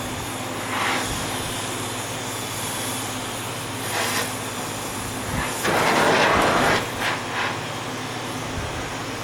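Gas heat source (torch or propane forge) running with a steady hum and hiss while a blade's temper is drawn, with a few short louder bursts of hiss; the loudest lasts about a second near the middle.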